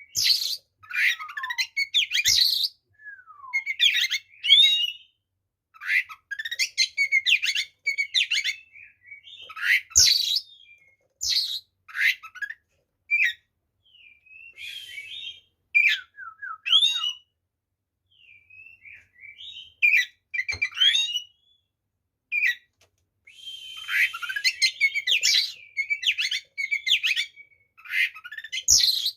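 Oriental magpie-robin (kacer) singing its fighting song: rapid, varied phrases of whistles, chirps and harsh scratchy notes, coming in bursts broken by short pauses.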